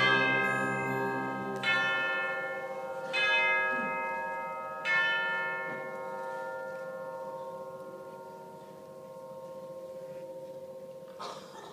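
Concert band playing bell-like music: four struck bell tones about a second and a half apart, each ringing out over a held chord. The low part of the chord stops about two seconds in, and the remaining tones fade slowly, with a short rustle near the end.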